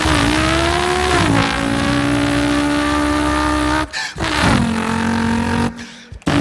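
A man imitating a racing car engine with his voice: a loud, steady buzzing note that drops in pitch about a second in, breaks off about four seconds in, then comes back twice in shorter bursts.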